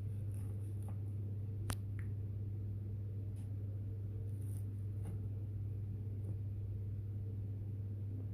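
Crisp kunafa pastry being cut and pressed, giving faint scattered crunches and crackles, with one sharp crack about two seconds in. A steady low hum runs underneath.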